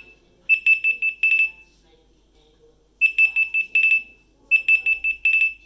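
BlackBerry Key2 smartphone playing one of its stock ringtones through its speaker: a high-pitched electronic beeping in clusters of rapid pulses about a second long, repeating with short pauses like an alarm.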